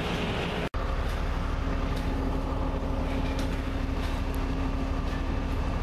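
Steady low engine drone, broken by a short gap less than a second in.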